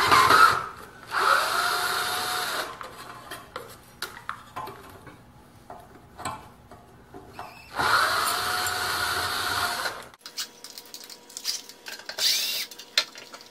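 Cordless drill/driver run twice in reverse, each run about two seconds, spinning up, holding speed and winding down as it backs screws out of the lathe leg's jacking pad. Small clicks and knocks follow near the end.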